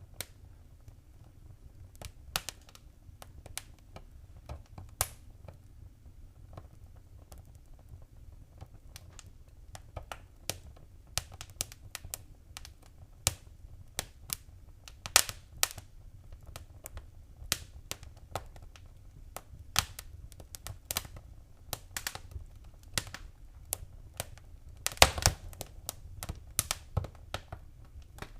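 Wood fire crackling: irregular sharp pops and snaps over a low steady rumble, busier in the second half, with a quick cluster of pops about 25 seconds in.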